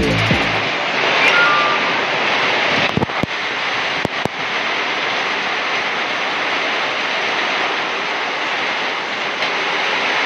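Steady rushing noise of rain and wind, with a few faint clicks about three and four seconds in.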